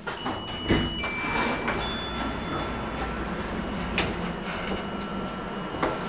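Star Lift lift car's automatic sliding doors opening at the landing, with knocks as they move and a steady whine that steps down in pitch before settling on one tone.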